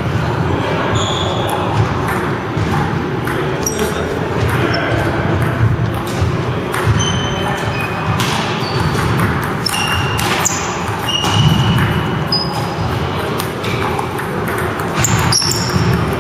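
Table tennis rally: the ping-pong ball clicking again and again off the paddles and table, with short high squeaks of sneakers on the wooden gym floor over a steady hum of hall noise.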